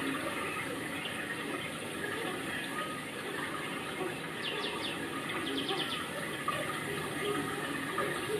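Steady rush of running water, with a bird giving two short runs of quick high notes about halfway.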